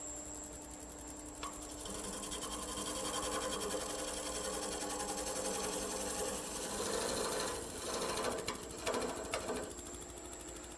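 Wood lathe running at about 600 rpm while a turning chisel cuts a spinning rough wooden blank: a steady motor hum under a rapid, rhythmic chattering scrape of the tool on the wood that swells and eases as the cut goes on. A few short knocks of the tool against the out-of-round wood come about a second and a half in and again near the end.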